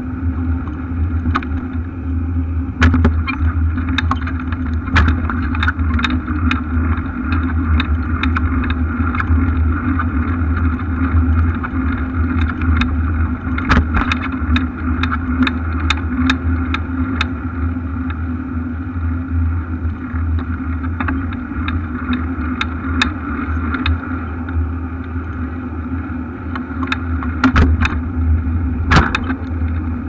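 Steady low rumble and hum picked up by a camera mounted on a moving bicycle, with many short sharp clicks and knocks scattered through it as the bike rolls over the path.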